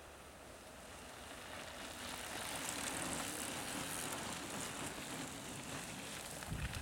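Mountain-bike tyres rolling over a sandy dirt trail as a group of riders passes close by. The rushing tyre noise swells to a peak about three seconds in, then eases a little.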